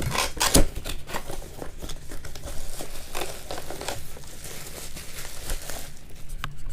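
Packaging being handled and unwrapped during an unboxing: crinkling and rustling, with scattered small clicks and crackles.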